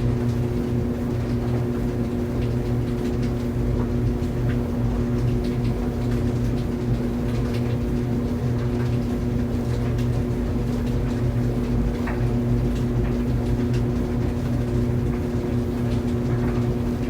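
Clothes dryer running steadily, a constant motor hum under the rumble of the tumbling drum, with faint scattered ticks.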